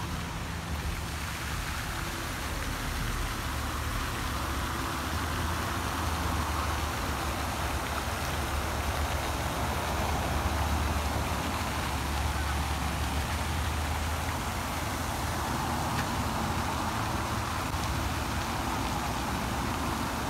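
Steady rushing splash of a lake fountain's spray falling back onto the water, swelling in the middle and again near the end, over a constant low rumble.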